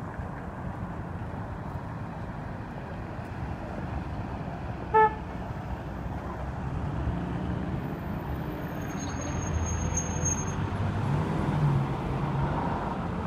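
Street traffic on a wet road: cars passing with engine noise and tyre hiss, growing louder in the second half. About five seconds in comes a single short car-horn toot, the loudest sound.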